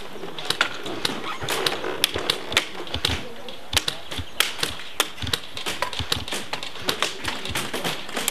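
Scattered sharp clicks and taps, several a second and unevenly spaced, typical of airsoft guns firing and BBs striking close by.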